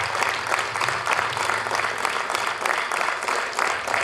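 Concert audience applauding, many hands clapping steadily.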